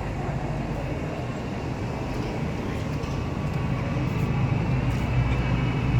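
Classic car's engine rumbling low and steadily, growing louder as it draws closer.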